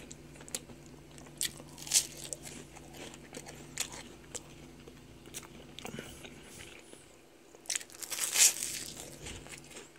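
A person biting into and chewing toast spread with apple butter: scattered crunches and lip smacking, with a louder, longer crunch about eight seconds in.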